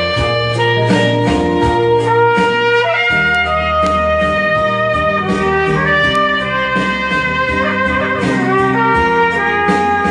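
A trumpet playing a melody of long held notes over accompaniment with a steady beat.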